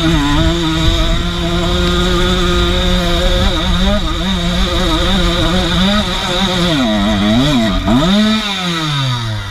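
Enduro motorcycle engine held at high revs, then near the end the revs drop and pick up twice before falling away.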